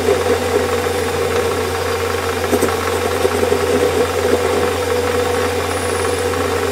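Warco metal lathe running with a steady hum and rattle while the end of a steel grub screw in the chuck is faced off to shorten it. A single sharp tick about two and a half seconds in.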